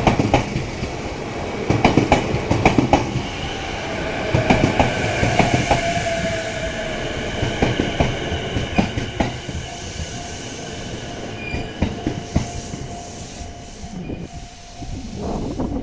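E233-series electric commuter train passing, its wheels clacking over rail joints in quick groups of clicks, over the steady whine of its VVVF inverter traction motors.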